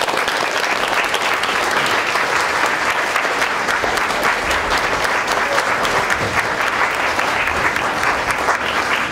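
Audience and cast applauding: dense, steady clapping.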